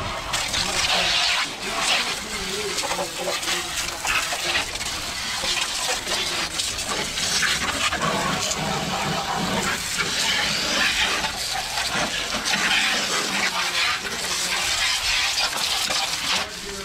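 Water jetting from a Turbo Jet spray wand on a garden hose, hissing and splashing against the car's front end and engine bay; the spray swells and eases as the jet is swept across.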